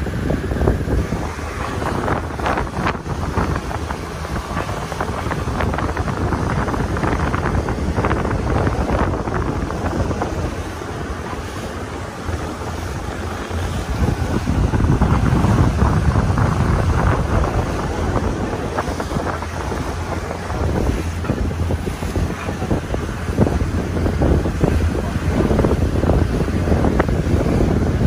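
Wind buffeting the microphone in a loud, steady rumble, with the wash of the sea behind it. It grows louder for a few seconds about halfway through.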